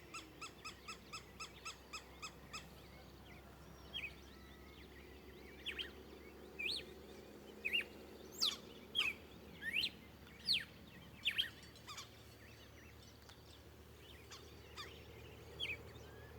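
Wild birds of the Caatinga calling: a quick, even series of repeated hooting notes for the first couple of seconds, then scattered short, sharp whistled notes, each sweeping quickly up or down in pitch.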